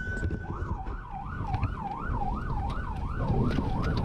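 Electronic emergency siren in a fast yelp, rising and falling about three times a second, heard from inside the brush truck's cab over the low running of its engine. A steady siren tone stops about half a second in, just before the yelp starts.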